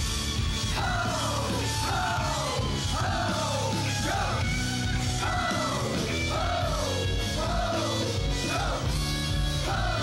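Rock music with yelled vocals: a falling phrase repeats about once a second over steady bass.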